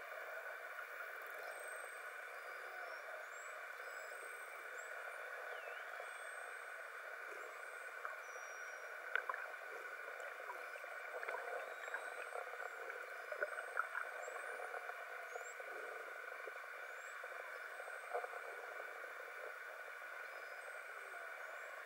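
Underwater sound picked up by a camera in open sea: a steady hum and hiss, scattered clicks, and faint short high whistles that rise and fall.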